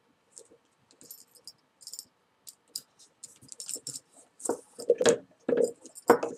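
Light clicks, rustles and small metallic clinks from a paracord collar with a metal buckle and metal beads being handled, as a paracord needle and cord are pulled through the loops. The sounds are sparse at first and grow louder and busier in the second half.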